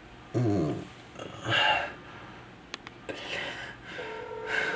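A man groaning in pain: one falling moan, then strained, noisy breaths, with a few small clicks in between. A steady tone comes in about four seconds in.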